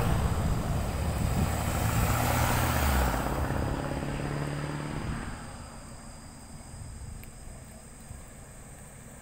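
A car passing close by: engine and tyre noise, loudest in the first few seconds, then fading away by about five seconds in.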